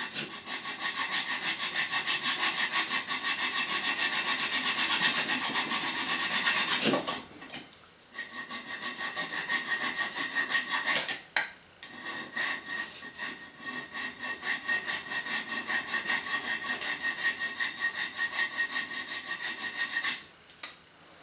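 Hand file rasping on aluminium in rapid, even back-and-forth strokes, cutting out the corners of a channel for a linear rail. The filing stops briefly a little after seven seconds in and again around eleven seconds, then ends just before the close.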